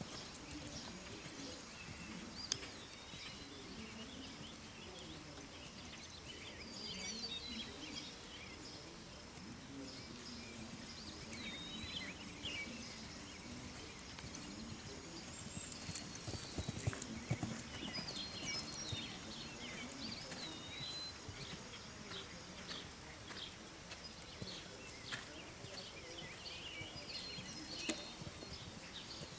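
Hoofbeats of a Westphalian/Thoroughbred gelding working under saddle on a sand arena footing, heard as a run of soft thuds and clicks.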